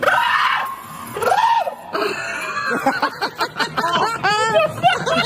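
People screaming in surprise, then breaking into rapid, excited shrieks and laughter.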